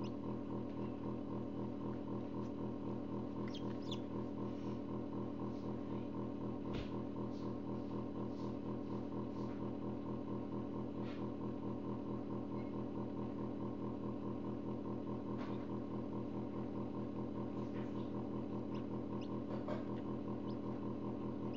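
Forced-air incubator's fan making a loud, steady hum. A few faint short sounds come from a Black Mottled Belgian d'Uccle chick pecking its way out of its egg.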